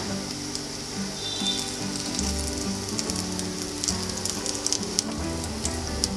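Soya kababs sizzling as they shallow-fry in oil in a nonstick pan, a steady hiss. From about four seconds in, a silicone spatula taps and scrapes against the pan as the patties are moved and turned, giving sharp clicks over the sizzle.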